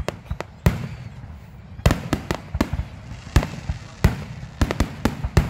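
Fireworks display: aerial shells bursting in a rapid, irregular series of a dozen or more bangs and cracks, with low rumbling between them. There is a short lull about a second in, then the bursts come thick near the end.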